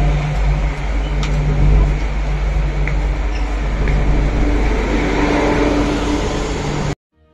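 Steady low rumble and hum of an MTR Kwun Tong Line Q-Train metro train standing at the platform, with a few faint clicks. The sound cuts off suddenly near the end.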